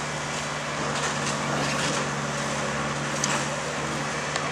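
Diesel engines idling steadily as a low, even hum, with a couple of faint clicks in the second half.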